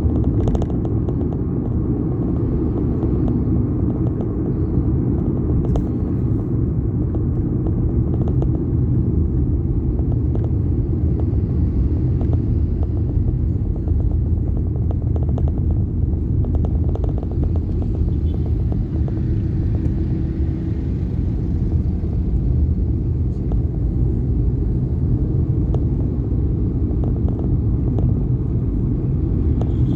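Steady low rumble of a vehicle in motion on the road, road and wind noise, even throughout.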